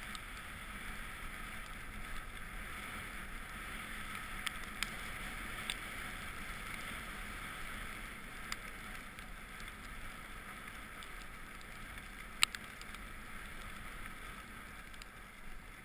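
Steady hiss of snow sliding under a rider going down a groomed piste, with wind rumbling on the action camera's microphone. A few sharp clicks come through, the loudest about twelve seconds in.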